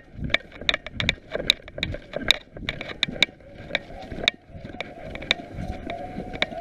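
Rapid, irregular sharp clicks and crackles, several a second, over a low rumbling noise. A steady mid-pitched tone comes in near the end.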